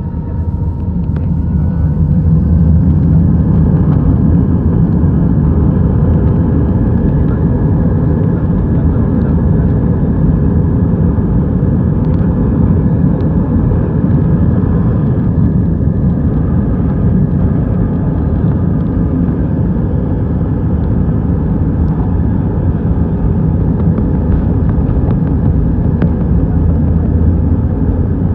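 Jet airliner at takeoff power on its takeoff roll, heard from inside the cabin: a loud, steady low roar of engines and runway rumble that swells over the first couple of seconds and then holds.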